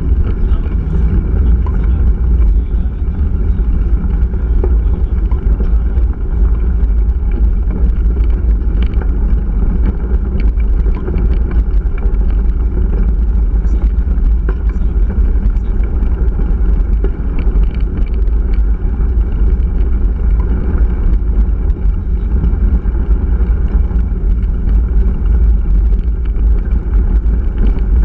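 Wind buffeting a handlebar-mounted camera's microphone, a heavy low rumble, while a mountain bike's knobby tyres roll over a dirt and gravel track. Frequent small clicks and rattles come from the bike jolting over the rough surface.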